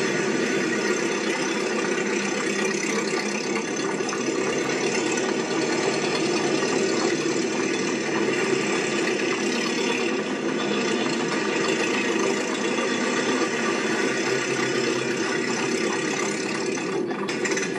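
A steady mechanical running noise with a rattle, unbroken and even in level.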